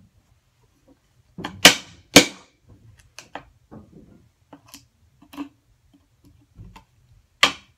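Hammer striking the handle of a mortise chisel driven into wood, chopping through the waste of a mortise. Two sharp blows about half a second apart come a little over a second in. A run of lighter knocks and clicks follows as the chisel is worked, then another sharp blow near the end.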